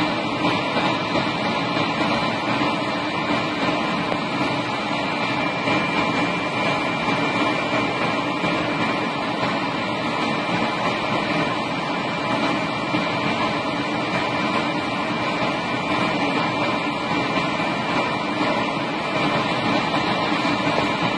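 Helicopter turbine engines and rotor running on the ground: a steady rush of noise with a high whine held on one pitch.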